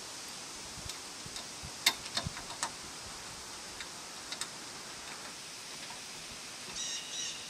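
Sharp metallic clicks and taps from a hand tool working the bolts of corner brackets on aluminium roof-rack bars: a quick cluster about two seconds in, a few more later. Two short high chirps near the end.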